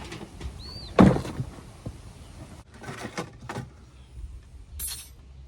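A sharp loud knock about a second in, then a few lighter clicks and knocks, and a short high hiss near the end.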